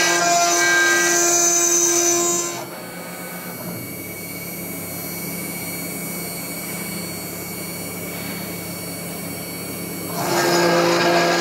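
A Mechmate CNC router spindle and endmill milling 10 mm S355MC steel plate dry. The loud, shrill cutting noise with steady tones stops under three seconds in, when the Z axis lifts the endmill clear so it can cool between passes. The spindle keeps running at a lower steady level, and the cut starts again near the end.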